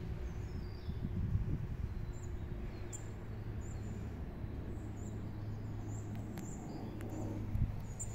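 Small birds chirping, short high calls every second or so, over a steady low outdoor rumble.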